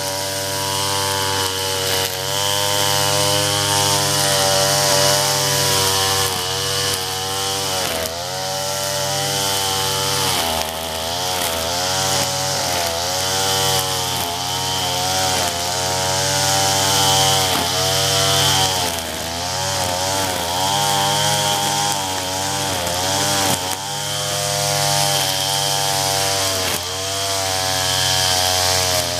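Gas-powered string trimmer running at high throttle. The engine pitch dips and recovers every few seconds as the speed changes.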